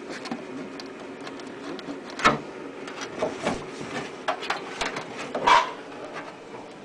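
Zinc sheet flashing being handled and pressed into place by hand: scattered light clicks and rubbing of thin metal, with two louder metallic knocks, about two seconds in and again after about five seconds, the second ringing briefly.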